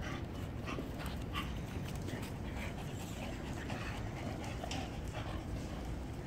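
Shar-Pei dog panting, with short irregular scuffing noises.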